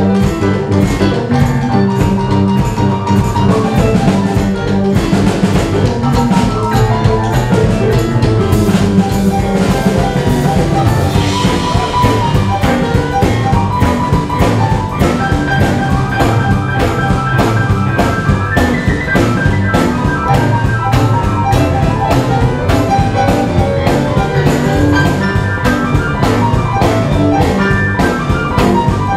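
Jump-blues band playing live: keyboards playing over bass and a steady drum beat.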